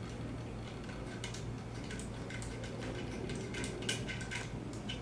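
Scattered light metallic clicks and ticks as the bicycle headset top cap and its screw are fitted by hand onto the fork, over a faint steady low hum.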